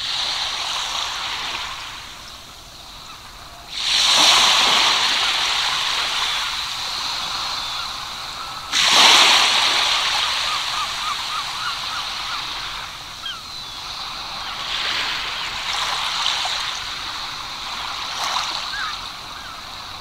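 Surf of waves breaking: a sudden rush about four seconds in and a louder one about nine seconds in, each hissing away slowly, with weaker swells later.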